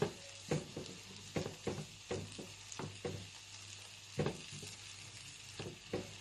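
Grated potato galette frying in oil in a small pan: a steady low sizzle, with short scrapes and taps of a spatula pressing and shaping the cake against the pan, about two a second at irregular spacing.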